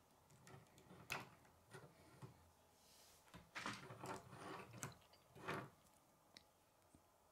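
Plastic K'nex pieces clicking as they are handled and snapped together: a few sharp clicks, with a busier run of clicks and rattles around the middle.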